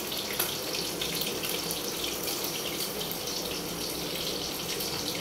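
Steady hiss from the stovetop where the fish curry is cooking: the burner and the simmering gravy.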